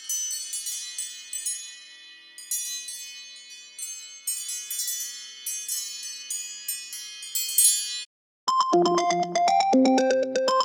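iPhone ringtones played back: a high, tinkling chime melody of many quick notes stops about eight seconds in. After a brief silence a second ringtone starts, a louder and lower synthesizer tune of quick repeated notes.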